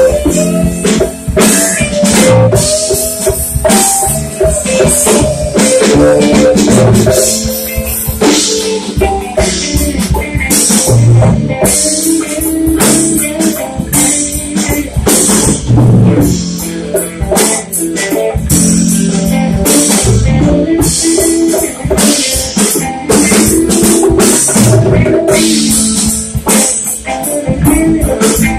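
Live rock band playing: an electric lead guitar line with bent notes over bass guitar and a drum kit.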